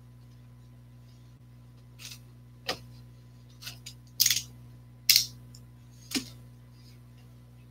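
Small objects being handled on a table: a string of short clicks and taps, about seven in four seconds, the loudest two near the middle, over a steady low hum.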